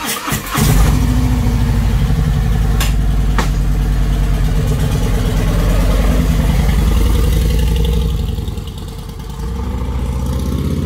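Harley-Davidson V-twin motorcycle engine starting and then running with a strong, steady low beat. Two sharp clicks come about three seconds in, and the engine note drops for a moment near the end before it comes back up.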